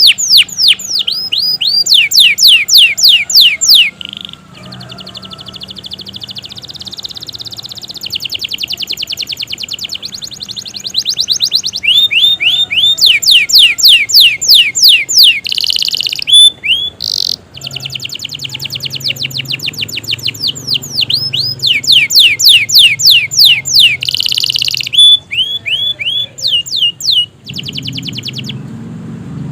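Domestic canary singing long, loud phrases of rapid trills, each made of quick, sharply falling whistled notes, broken by a few brief pauses.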